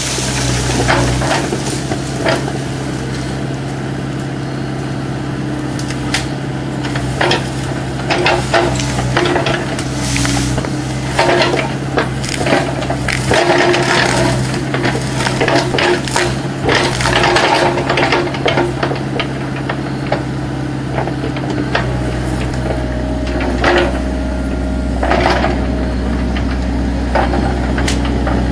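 Kubota U-45 mini excavator's diesel engine running under work, with repeated sharp cracks, snaps and knocks of wood breaking as the machine pushes and pulls at a tree.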